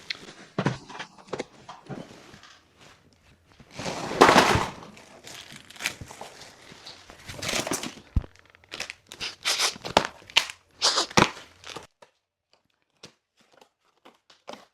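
Packaging being handled during an unboxing: crinkling, rustling and knocking, with a longer tearing sound about four seconds in. The sound drops away abruptly near the end, leaving only a few faint clicks.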